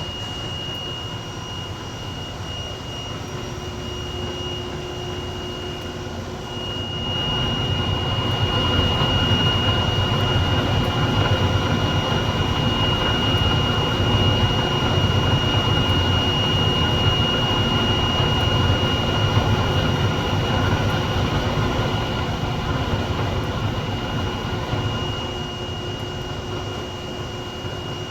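A machine running steadily, with a constant high whine over a low rumble. It gets louder about seven seconds in, as if taking up work, and eases off a little near the end.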